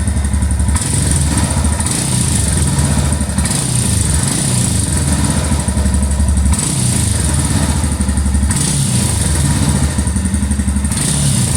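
Royal Enfield Scram 411's warmed-up single-cylinder engine running, recorded close to the exhaust. Its note changes several times as the throttle is opened and eased off.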